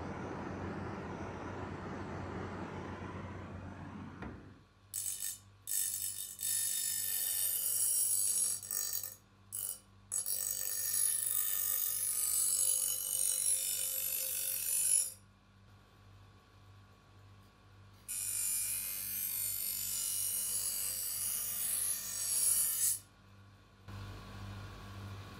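A gas torch flame burning steadily for about the first four seconds. Then an electric bench grinder hums at a steady pitch while a steel knife blade is pressed against its spinning wire wheel: a few short grinding touches, then two long spells of loud, harsh, high-pitched grinding that throws sparks, with only the motor hum in the pause between them.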